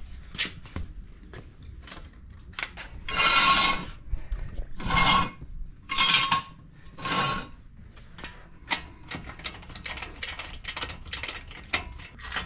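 Long-handled socket wrench turning the lug nuts on a pickup truck's wheel: four short metallic rasps, each about half a second, then a run of light metal clicks.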